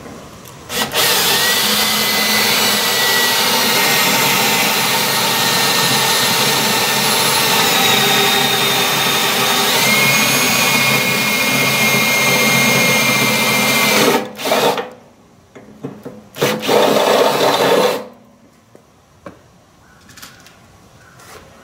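Ridgid cordless drill boring a hole through the metal casing of a microwave oven: the motor runs steadily with a thin whine for about thirteen seconds, the whine stepping slightly higher partway through, then stops, followed by two short bursts of drilling.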